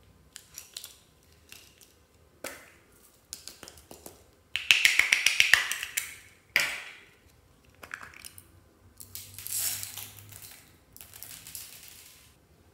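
Plastic heart-shaped containers clicking as they are handled, then small plastic beads rattling out in a quick run of clicks about halfway through. Near the end come softer hissing spells as more beads pour onto the slime.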